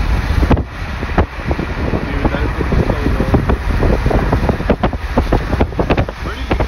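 Gusty wind buffeting the camera's microphone: a loud, steady low rumble broken by frequent irregular bumps as the gusts hit.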